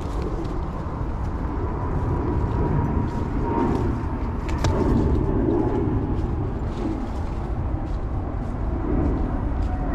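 Footsteps and rustling of brush while walking a wooded dirt trail, over a steady low rumble, with a few short clicks of twigs or gear.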